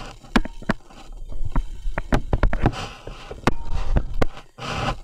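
Stylus tapping and scraping on a tablet screen while handwriting numbers: a run of sharp, irregular clicks.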